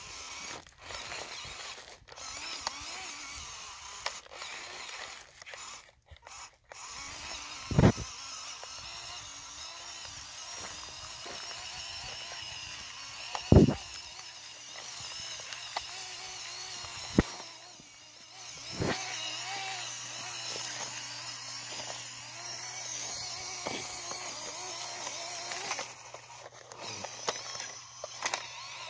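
Electric motor and gear train of a modified WPL C24 RC truck (upgraded stage 3 motor and transfer case) whining as it drives, the pitch wavering with the throttle. A few sharp knocks come through as it moves over rough ground.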